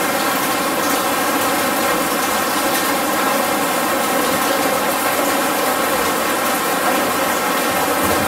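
Steady rain falling on the installation, an even, unbroken rush of water with a faint steady hum beneath it.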